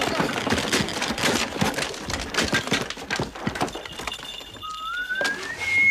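Horse hooves clattering in quick, irregular knocks. Near the end a thin tone slowly rises in pitch.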